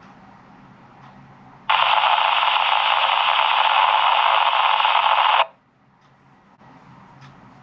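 Uniden BCD436HP police scanner's speaker putting out a burst of radio static for about four seconds, a carrier with no voice on it, which starts abruptly and cuts off suddenly as the squelch closes.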